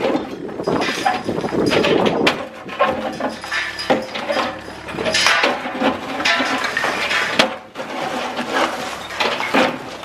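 A Cat 305E2 mini excavator breaking up a gunite-and-rebar concrete building: irregular crunching and scraping with sharp knocks and clanks as concrete and steel give way.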